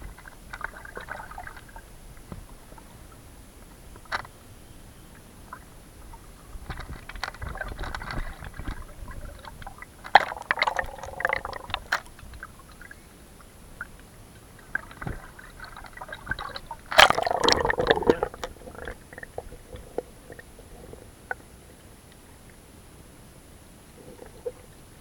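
Sea water sloshing and gurgling around a camera held at and below the surface, with uneven bursts of bubbling and splashing and scattered clicks; the loudest burst comes about two-thirds of the way through.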